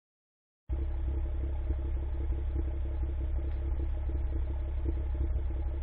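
2013 BMW 135i's turbocharged straight-six idling steadily, heard through its exhaust as an even, deep rumble with no revving. It cuts in suddenly under a second in, after a short gap of silence.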